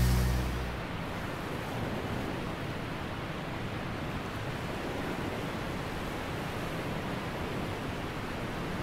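Steady rush of ocean surf and wind, an even wash of noise with no distinct events. A low musical tone dies away within the first second.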